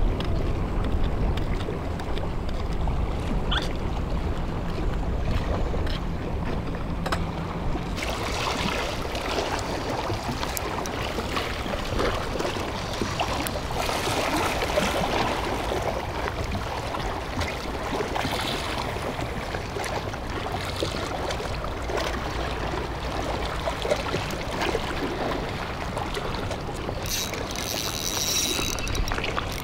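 Wind buffeting the microphone and sea water washing against a concrete breakwater, over a low steady drone; the hiss gets broader about eight seconds in.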